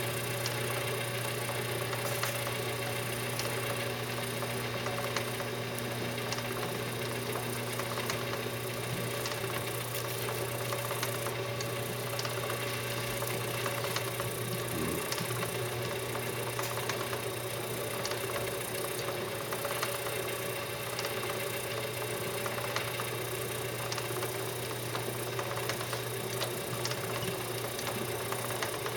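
Antique Easy copper washing machine running, its motor humming steadily as it drives the agitator plungers up and down, with light mechanical ticking throughout.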